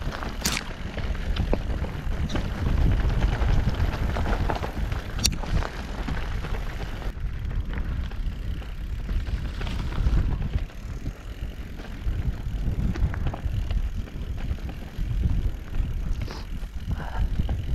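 Mondraker Crafty R 29 electric mountain bike riding a rough trail: tyres crunching over stones and the bike rattling, with a couple of sharp knocks. Wind rumbles heavily on the microphone.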